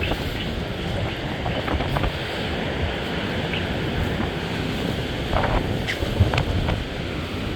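Strong gusting wind buffeting the microphone, over storm surf on the shore, with a few short knocks about five to six seconds in.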